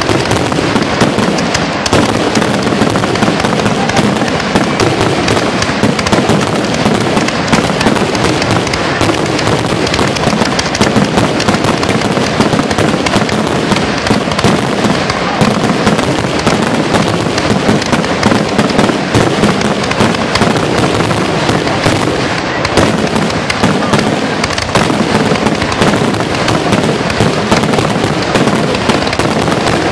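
Aerial fireworks shells launching and bursting in a rapid, continuous barrage, the bangs packed so closely together that they run into one another without a pause.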